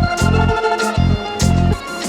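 Background music: sustained chords over a steady beat of deep bass notes with a high tick on each, three beats about 0.6 s apart.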